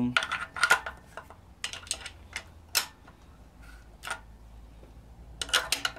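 Socket ratchet clicking in short irregular runs as it is swung back and forth, unscrewing cylinder head bolts on a BMW M52TU/M54 head after they have been broken loose.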